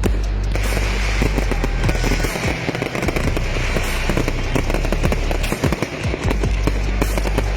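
Fireworks display: dense, rapid crackling and bangs, many reports a second, over music with a deep bass.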